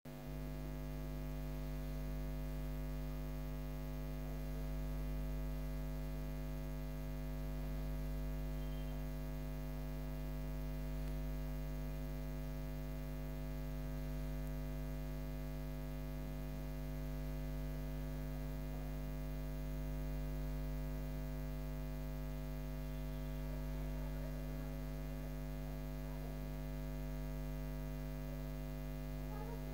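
Steady low electrical mains hum with a buzzy edge, unchanging throughout.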